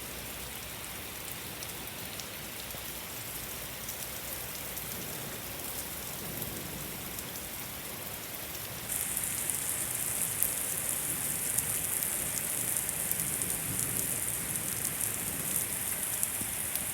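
Heavy rain falling, a steady hiss of many drops striking surfaces. About halfway through it abruptly grows louder and brighter, with denser drop impacts.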